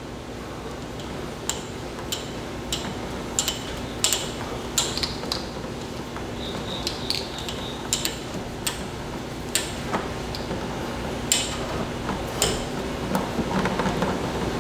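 Sharp metallic clicks and taps, mostly about half a second to a second apart, from hand tools and parts working on a motorcycle front fork being disassembled, over a low steady hum.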